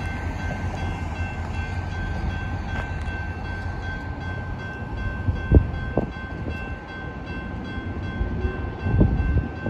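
Railroad crossing bell ringing steadily as the gates lower, over the low rumble of EMD GP38-2 diesel locomotives. A few heavy thumps come about halfway through and again near the end.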